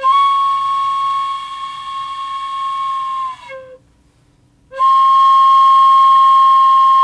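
Bamboo transverse flute blown in two long, steady held notes, with a short break about three and a half seconds in. The finger holes are being covered and uncovered to show how the length of the air column sets the pitch.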